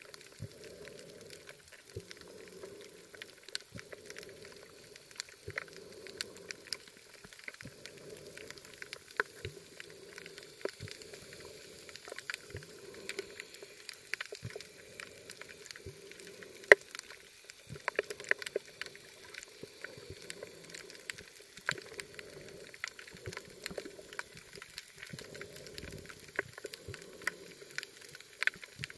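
Underwater sound of a coral reef through an action camera's housing: a dense, irregular crackle of sharp clicks, typical of snapping shrimp, with one sharper click about halfway through. Under it, a muffled low rush of water swells and fades about once a second.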